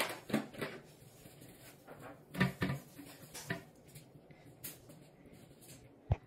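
Scattered light knocks and clunks of things being handled and set down in a small tiled bathroom, the loudest about two and a half seconds in and a sharp one near the end.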